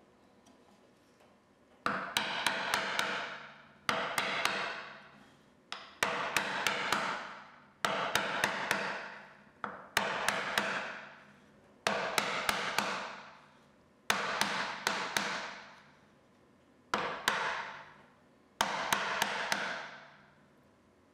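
Bench chisel struck with a small brass mallet in quick clusters of three to five light taps, a cluster about every two seconds, each trailing off over a second or so, as the chisel chops along a knife line to start a dado.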